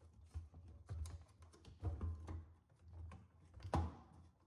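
LG front-load washer's rubber door boot seal being peeled off the cabinet's front lip by hand: faint, irregular rubbing and soft taps and thumps, the loudest near the end.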